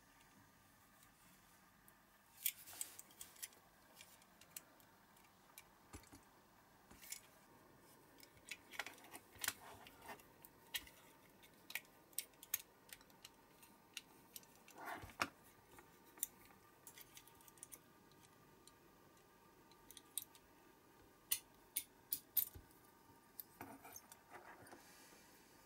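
Scattered light metallic clicks, taps and short scrapes from a diecast Matchbox toy truck being handled: a small screwdriver prying at its metal baseplate, then the baseplate worked loose and pulled apart from the body once its rivets are drilled out.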